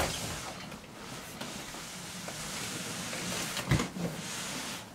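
A large cardboard box scraping as it is slid and pushed across a floor and rug, a steady hiss. There is a sharp knock at the start and a dull thump about three-quarters of the way through.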